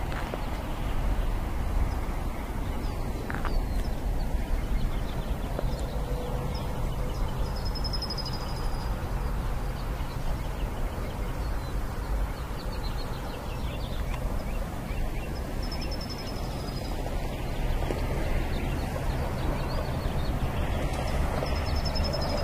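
Steady outdoor background noise with a strong low rumble, and a few short high chirps now and then; no gunshots.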